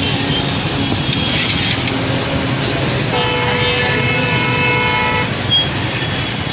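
Steady road traffic noise, with a vehicle horn sounding one held note for about two seconds midway.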